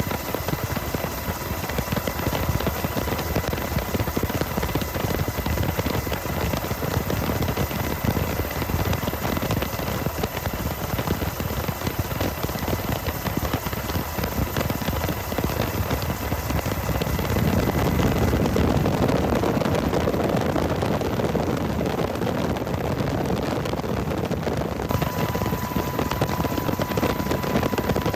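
Steady whirring rotor noise of an aircraft in flight, with a faint constant high whine over it; it swells a little about two-thirds of the way through.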